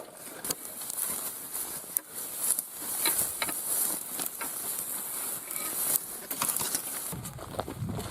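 Footsteps crunching irregularly on dry ground and brush while hiking uphill, over a steady high hiss. A low rumble comes in about seven seconds in.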